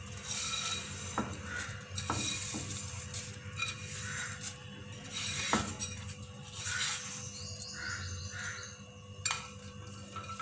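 Metal cookware clinking and scraping as butter-fried vermicelli is tipped from a frying pan into a saucepan of hot milk, with a few sharp knocks of metal on metal.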